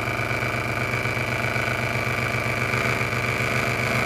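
Wen benchtop scroll saw running steadily, its blade stroking rapidly up and down as it cuts through wood, with a constant high whine over the fast, even rhythm of the strokes.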